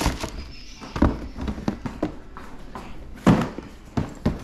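Cardboard shoe boxes being handled and shifted in a stack, with several knocks and thumps of box against box, the loudest about three seconds in.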